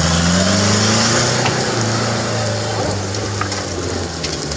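Off-road 4x4's engine revving hard under load as it tries to climb a soft, loose dirt slope, its wheels churning the earth; the engine note rises over the first second, then holds, easing off near the end as the climb falls short.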